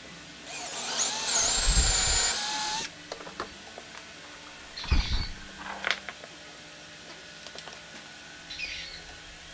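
Cordless drill boring through a pine board, running for about two and a half seconds with its pitch wavering, then stopping abruptly. A couple of short knocks follow.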